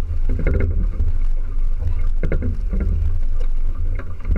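Wind rumbling on the microphone of a small sailboat under way, with water splashing against the hull a few times.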